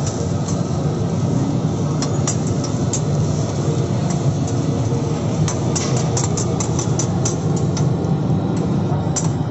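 Metal spatulas clinking and scraping on a flat steel griddle over a steady low rumble, with a quick run of clinks in the second half.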